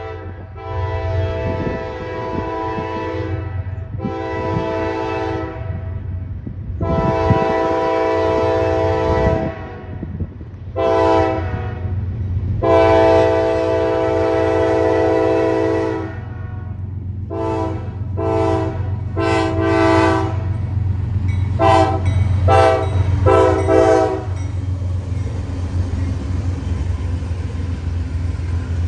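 Lead CSX diesel locomotive's multi-note air horn sounding for a grade crossing: several long blasts, then a run of short toots that stops about 24 seconds in. The locomotives' diesel engines and the train's wheels rumble steadily underneath and carry on as the train passes.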